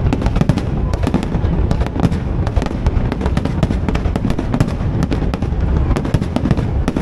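A fireworks display going off in a dense, continuous barrage: rapid overlapping bangs and crackles over a steady heavy rumble, with no let-up.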